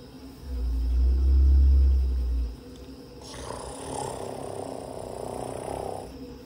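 Baby African elephant giving a deep, low rumble lasting about two seconds, followed by a softer hissing noise for about three seconds.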